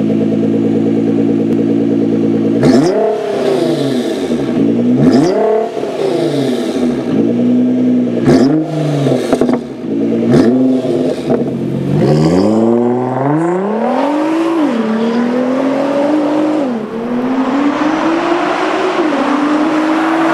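Nissan GT-R R35's twin-turbo V6 through a STILLEN stainless steel cat-back exhaust: idling steadily, then a series of sharp throttle blips that rise and fall quickly. About halfway through, the car accelerates past under load, the engine note climbing with two sudden drops in pitch at upshifts.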